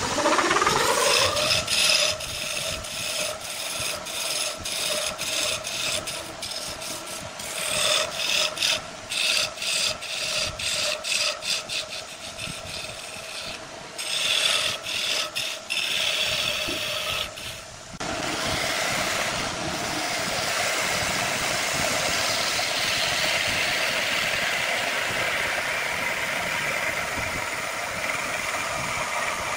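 Wood lathe spinning up with a rising whine and then running steadily while a turning tool cuts the spinning wood in short repeated strokes. About two-thirds of the way in, the strokes give way to one unbroken, steady noise of tool against wood.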